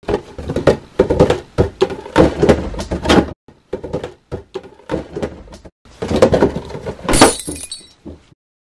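An item being smashed apart: a run of cracks, crunches and knocks, then a sharper, brighter crash about seven seconds in.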